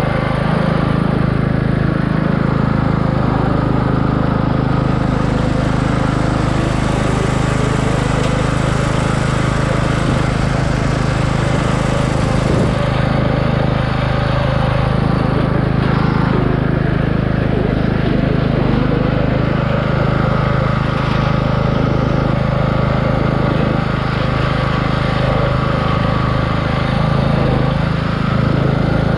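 Craftsman riding lawn mower's 17.5-horsepower engine running steadily, with no big changes in speed.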